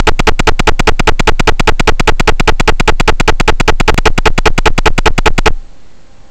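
Loud electronic buzz of rapid, even clicks, about ten a second, in the FPV video link's recorded audio. It cuts off suddenly about five and a half seconds in, leaving a low hiss.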